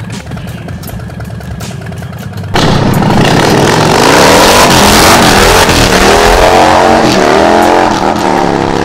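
Harley-Davidson Breakout's Milwaukee-Eight 114 V-twin through an aftermarket Blow Performance exhaust, first idling with an even pulsing beat. About two and a half seconds in it turns suddenly much louder as the bike is ridden, the engine revving up and dropping back several times through the gears.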